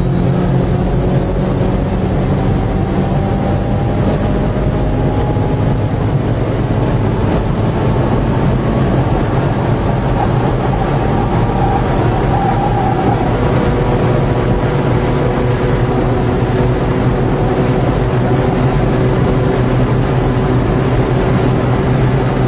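Car engine running hard at high revs as the car accelerates at high speed, heard from inside the cabin over steady road and wind noise. Its note climbs slowly.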